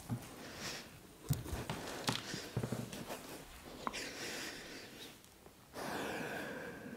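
A person breathing audibly through nose and mouth during vigorous movement, with soft thuds of bare feet and body landing on a yoga mat over a wooden floor. A longer, steadier exhale comes near the end.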